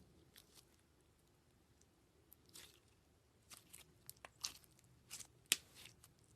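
Slime being pressed and worked by hand, giving scattered soft crackles and pops that come thicker in the second half, the sharpest about five and a half seconds in.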